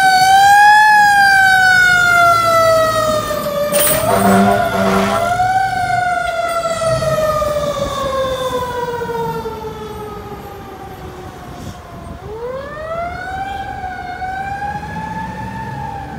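Fire engine siren wailing in slow rising and falling sweeps, with two short blasts of the truck's horn about four seconds in. The wail winds down over several seconds, then climbs again near the end.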